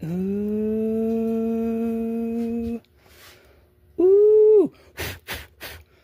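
A man's long, steady hummed 'mmm/ooh' of admiration at the freshly opened geode. A shorter 'oh' rises and falls about four seconds in. Three quick sharp sounds follow near the end.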